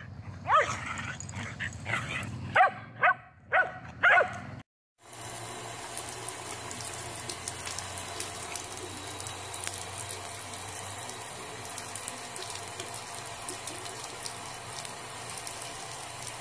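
A dog barking, about nine barks in quick succession, then, after a short break, a faucet running steadily into a sink.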